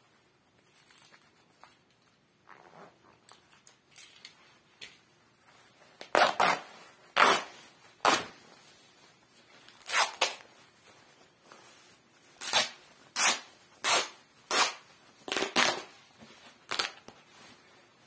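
Clothing fabric being torn by hand: about a dozen short, sharp rips in quick irregular succession, starting about six seconds in. Before that there is only soft rustling of cloth.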